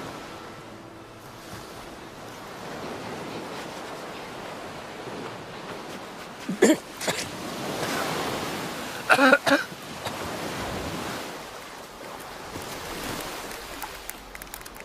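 Ocean surf washing steadily on a shore, with a few short loud pitched sounds about seven and nine seconds in.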